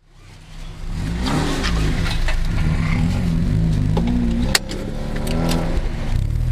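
Supercharged Mazda MX-5's 1.8-litre BP-ZE four-cylinder engine, through a decat exhaust, revving up and down again and again as the throttle is worked, with a single sharp crack about four and a half seconds in, after which the revs hold steadier.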